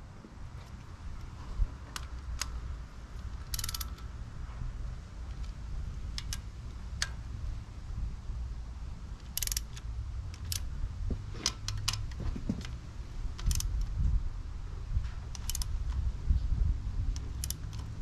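Hand ratchet wrench clicking in several short runs, with single metallic ticks between, over a low steady background rumble.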